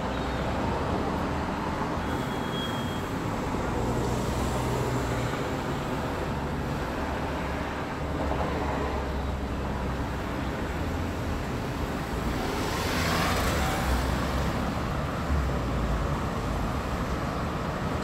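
Steady city street traffic noise, with a vehicle passing about twelve to fourteen seconds in.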